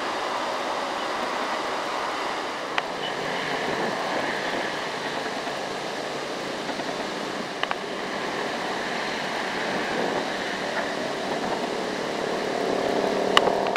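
Motor vehicle engine running steadily with road noise, growing louder again near the end, with a few sharp clicks.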